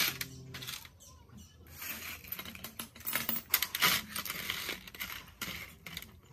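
Small rusty steel parts of an overlock sewing machine being scraped across a wet work surface with a metal scraper and tipped into a metal tray of liquid: a run of metallic clinks and rattles over scraping, busiest from about two seconds in.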